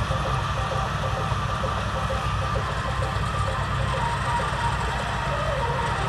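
Tractor engine running steadily under load while driving a straw reaper that chops wheat straw and blows it into a trailer. A constant low drone with a faint, slightly wavering whine above it.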